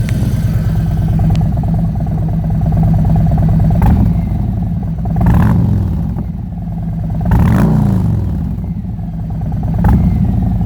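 2019 Harley-Davidson Freewheeler's V-twin idling with a lumpy, even pulse through megaphone slip-on mufflers, blipped about four times; each rev rises briefly and drops back to idle. The sound has a deep bass note.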